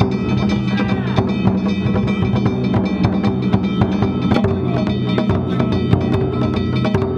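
Danjiri narimono music: a taiko drum and small hand gongs struck in a fast, continuous rhythm, the gongs ringing on between strikes.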